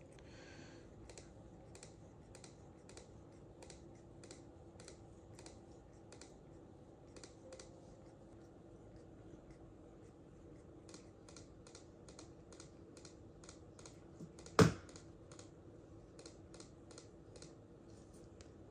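Cat grooming itself, licking its fur with quiet, even lick sounds about two a second that come faster for a few seconds past the middle. One loud, sharp knock comes about three-quarters of the way through.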